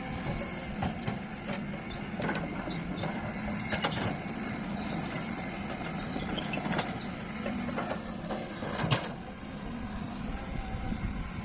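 Heavy earthmoving machinery working: a diesel engine runs steadily under repeated metallic clanks and knocks, with high thin squeaks of metal on metal a couple of seconds in.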